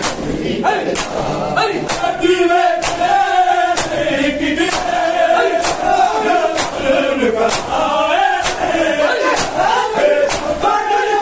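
A group of men chanting a noha, a Shia lament for Imam Hasan, together, with the sharp slaps of bare hands on bare chests (matam) keeping a steady beat.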